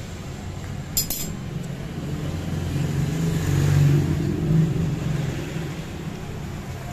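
A vehicle engine's low hum in the background that swells and grows louder about three to four seconds in, with a single sharp metal clink about a second in.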